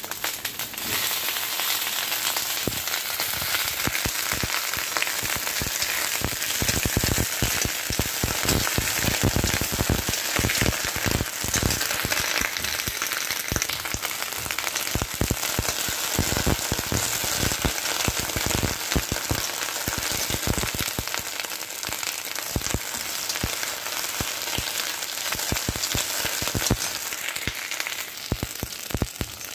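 Whole slit baby brinjals frying in mustard oil in an iron kadhai, a steady dense sizzle full of fine crackles.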